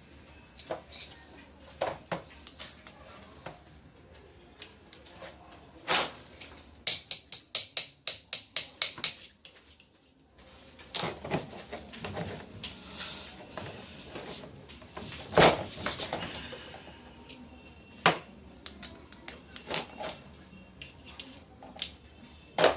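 Metal clanks and knocks of tools and pump parts being handled while a pressure-washer pump is taken apart, including a quick run of about ten hammer-like strikes a third of the way in.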